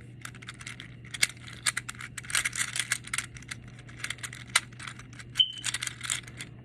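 Silicone pop-it fidget toy being pressed, a quick, irregular run of small clicking pops. There is a brief high squeak about five seconds in.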